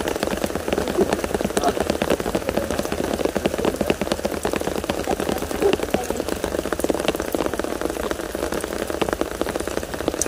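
Rain falling on the rice-field hut's roof: a steady, dense ticking of drops.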